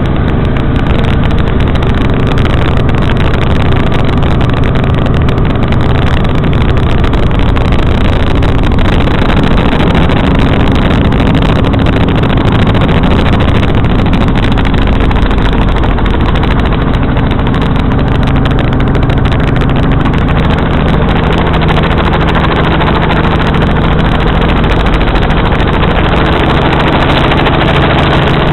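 Helicopter in flight: a loud, steady drone of engine and rotor that holds without a break.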